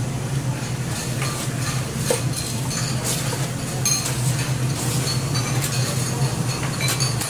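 Light clinks and taps of cups and metal kitchenware, a few scattered over several seconds, over a steady low hum.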